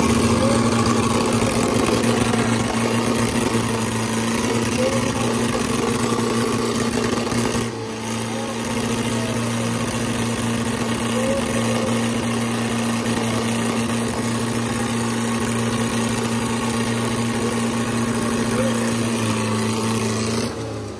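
Diesel tractor engines held at full throttle under heavy load in a tug-of-war pull, the nearest being a Mahindra Arjun 555. The steady, even engine note barely changes pitch, dips briefly about eight seconds in, and drops away just before the end.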